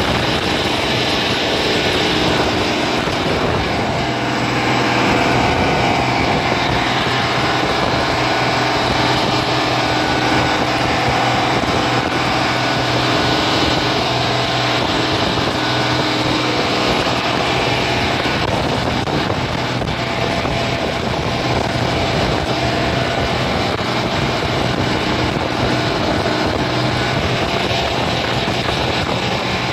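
Motorboat engine running steadily at speed, mixed with the rush of wind and churning water from the hull and wake.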